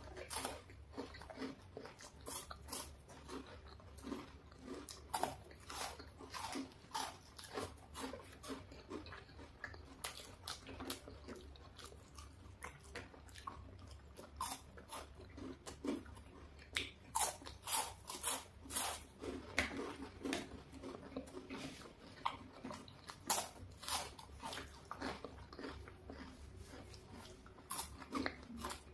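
Two people biting into and chewing chocolate bars: a run of irregular, crisp crunches and bites, bunched most thickly in the middle of the stretch.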